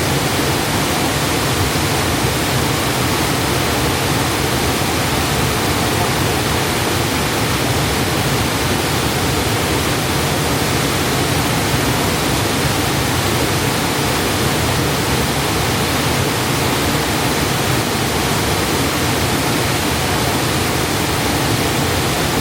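Waterfall pouring in strong flow: a loud, steady rush of falling water.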